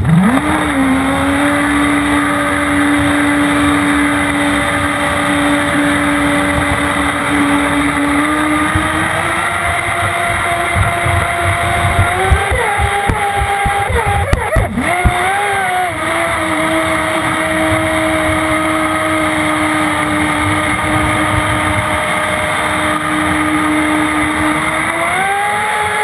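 Jet boat's motor running hard at a steady pitch with water rushing past. It spins up right at the start, wavers up and down about halfway through, and rises again near the end.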